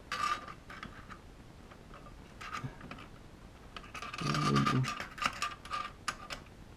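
Small metal clicks and scrapes of a change tool being fitted into a Kaba Simplex 1000 push-button lock's combination-change slot. A brief low hum about four seconds in is the loudest sound.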